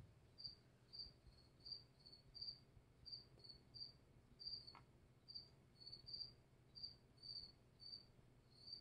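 A cricket chirping faintly, short high chirps repeating about twice a second, over a low steady hum. A faint click about five seconds in.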